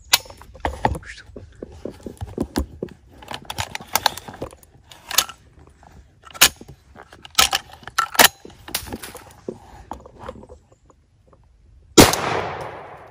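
A single loud gunshot from a hunting gun about twelve seconds in, ringing out with a long echoing tail. Before it, a run of irregular clicks and crackles.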